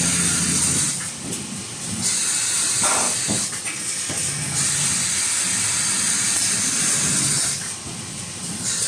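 XY AI 398D toilet paper bundle packing machine running: a loud hiss that eases off about a second in, returns about four and a half seconds in and eases again near the end, with a few short mechanical knocks around three seconds in.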